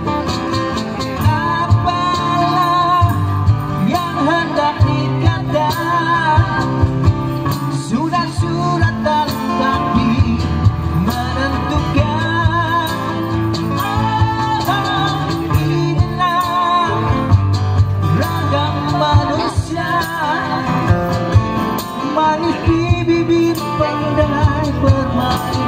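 Live acoustic band playing a Malaysian rock kapak song: strummed acoustic guitars and a box-drum beat under a male lead vocal singing with wide vibrato, amplified through a PA.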